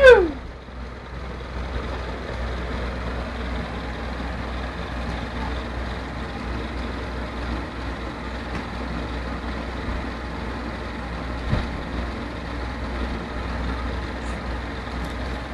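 A child's short squeal, falling in pitch, at the very start, then a steady low rumble with one faint click about eleven seconds in.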